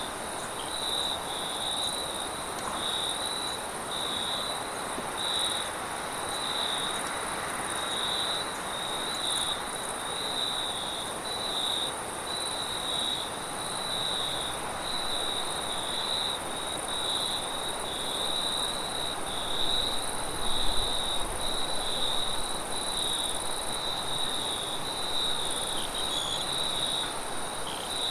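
Crickets chirping in a regular pulsing rhythm over a continuous higher insect trill, with a steady hiss of wind underneath that gusts up about two-thirds of the way through.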